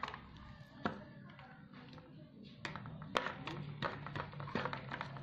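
Metal spoon knocking and scraping against a plastic tub as a child stirs flour batter, in irregular taps and clinks that come more often in the second half.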